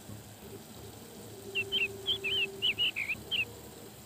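A quick run of about nine short, high whistled chirps, each gliding up and down in pitch, with a faint steady hum beneath the first part.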